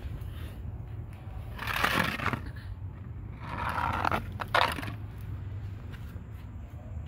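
Plastic sheeting crinkling and rustling in two bursts, about two seconds in and again around four seconds in, as it is brushed and pressed, over a steady low hum.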